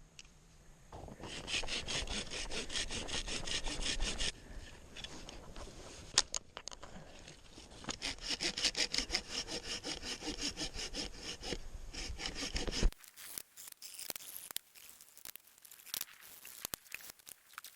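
Wood being cut with a hand saw in quick, regular back-and-forth strokes, in two runs with a pause of a few seconds between them; the sawing stops abruptly near the end, leaving faint scattered clicks and rustling.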